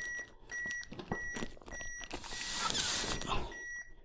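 AED beeping a steady CPR metronome, one short high beep about every 0.6 s. From about two to three and a half seconds in, a rescue breath is blown through a plastic face shield into a CPR manikin, a loud breathy hiss.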